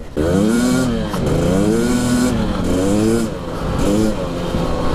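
Husqvarna TE300i's two-stroke single-cylinder engine revving up and dropping back again and again while being ridden, its pitch rising and falling about once a second.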